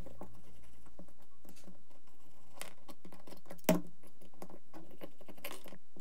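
Parts of a B-50 rail handguard being handled and fitted together by hand: light clicks and scrapes of the pieces and screws, with one sharper click a little past halfway.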